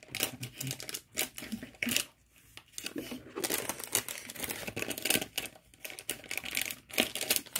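Clear plastic wrapper of a pack of coloured markers crinkling and rustling as it is pulled open and the markers are drawn out, with irregular small clicks of the markers knocking together.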